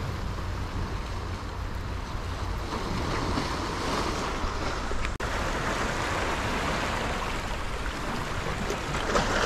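Sea surf washing and splashing over shoreline rocks, a steady wash of noise, with wind rumbling on the microphone. The sound drops out for an instant about five seconds in.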